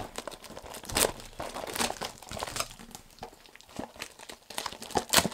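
Small cardboard mystery-mini boxes and their wrappers being opened by hand: irregular crinkling and tearing of packaging, with a sharper snap about a second in and another near the end.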